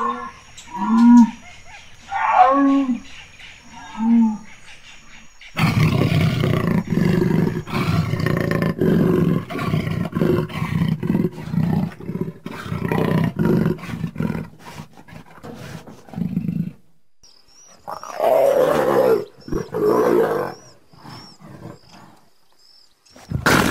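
Big-cat vocalizations. Jaguar calls come first, repeated about every second and a half, then a long dense run of deep grunting that lasts about eleven seconds. Near the end a leopard gives two loud calls a second or so apart.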